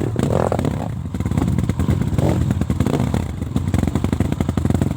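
Trail motorcycle engine running steadily, with a rapid firing rhythm.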